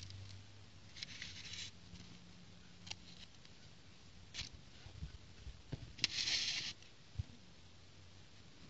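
Loose plastic building bricks handled and shifted in a plastic plate: scattered small clicks of pieces knocking together, and two short rustling scrapes, the louder one about six seconds in.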